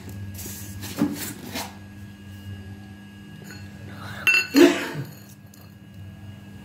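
A stainless steel bowl clinks against a tiled floor about four seconds in, a sharp knock with a brief metallic ring. Before that come a few short rustling handling noises.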